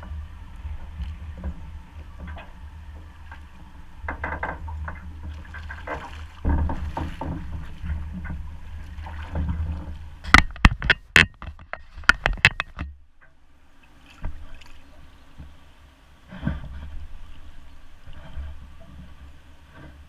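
River water lapping and a low wind rumble on the camera while a catfish is played on a bent rod. About ten seconds in comes a quick run of a dozen sharp knocks and splashes lasting under three seconds, the loudest part.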